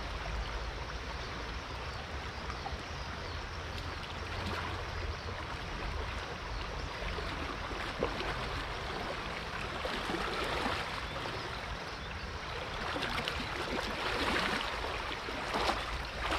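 Flowing river water rushing steadily, swelling louder and rougher in the second half.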